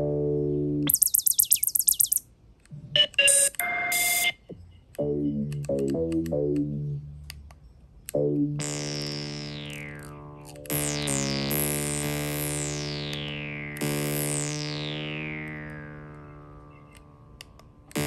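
Cherry Audio Surrealistic MG-1 Plus software synthesizer played from a MIDI keypad, with held notes and short note runs in changing patch sounds. About a second in there is a fast stuttering run of high notes. Past the middle, long held tones sweep downward in brightness.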